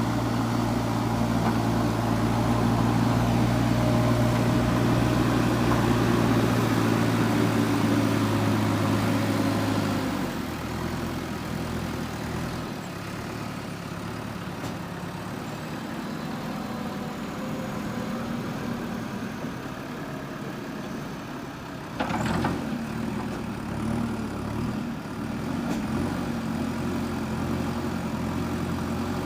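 JCB 3DX backhoe loader's diesel engine running steadily, then dropping to a lower, quieter speed about ten seconds in. A short knock or clatter stands out about two-thirds of the way through.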